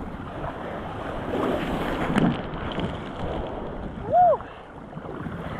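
Sea water sloshing and splashing around an action camera held at the water's surface, muffled, with wind buffeting the microphone. About four seconds in there is a brief rising-and-falling tone, the loudest moment.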